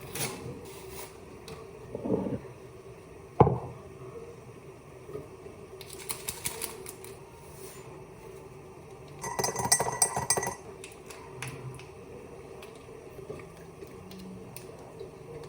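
Mugs and teaspoons clinking and clicking as cups of tea are made, with scattered knocks and two short bursts of rattling clatter, the second with a light ring.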